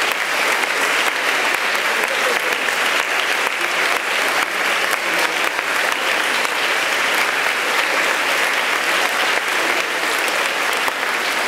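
A large crowd applauding, many hands clapping steadily and without a break.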